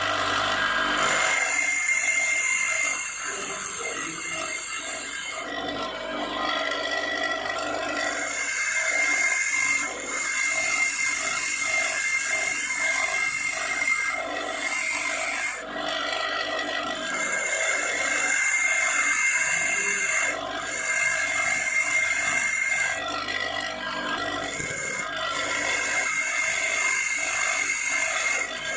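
A grinding wheel grinding an HSS lathe tool bit: a steady rasping hiss of steel against the abrasive wheel, which drops away briefly a few times when the tool is lifted off the wheel.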